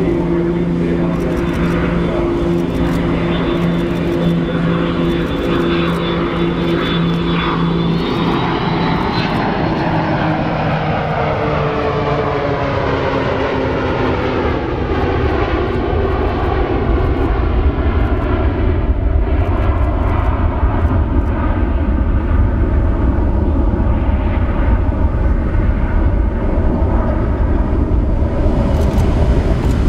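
Boeing 727's three Pratt & Whitney JT8D turbofans in a low flypast: a steady engine hum and high whine, then the pitch falls as the jet passes about ten seconds in, leaving a deep rumble that grows a little louder as it climbs away.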